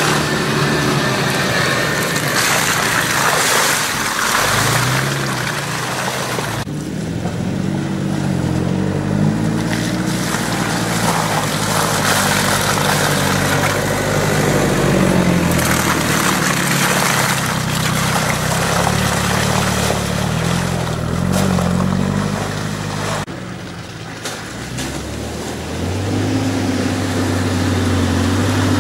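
Engines of Toyota Land Cruiser 4x4s driving slowly through mud, revs rising and falling. The sound changes abruptly twice, and near the end a steadier low engine note takes over.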